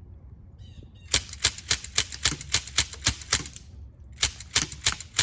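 CO2-powered AR-15-style pellet gun firing in rapid succession, a sharp crack about four times a second: one string of about ten shots, then a short pause and a second string starting near the end.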